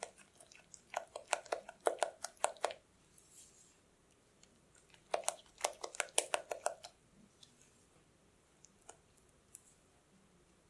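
Silicone spatula working soft tart dough in a glass bowl: two runs of quick, wet clicking strokes, one about a second in and another around five seconds in, with quiet between.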